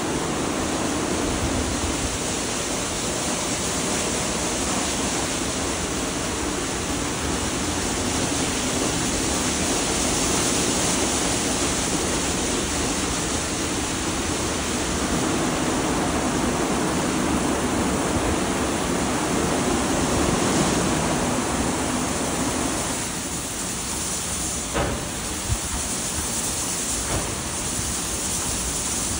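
WashTec gantry car wash at work on a car: rotating wash brushes turning against the bodywork and water spraying, a steady loud rushing noise. A little over 20 seconds in it eases slightly, and a few short knocks follow.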